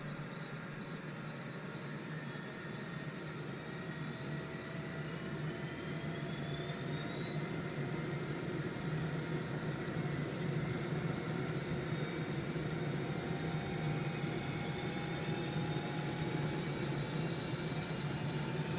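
Agusta Caweel CW-95 engine sound effect: a steady engine hum with high whines slowly rising in pitch, growing gradually louder.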